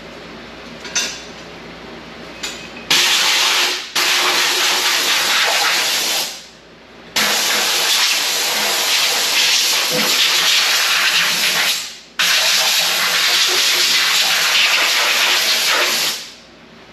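Compressed-air blow gun hissing, blowing dirt and debris off the top of an engine: two short puffs, then long blasts of several seconds each with brief breaks between them.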